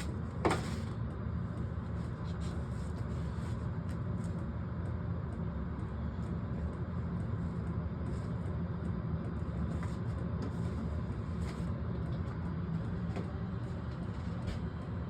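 HLN 4 kW diesel air heater running steadily with a low hum, with a sharp click about half a second in and faint ticks now and then.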